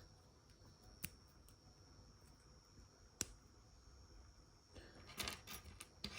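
Plastic Lego pieces being handled and sorted: two sharp clicks, about one and three seconds in, then a spell of light clicking and rattling near the end.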